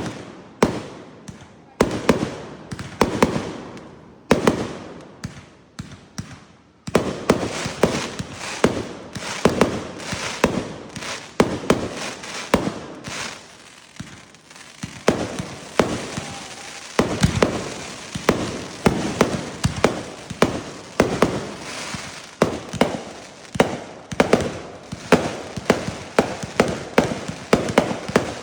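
Fireworks going off: sharp bangs, each trailing off in an echo, a second or so apart at first, then from about seven seconds in a rapid barrage of several bangs a second.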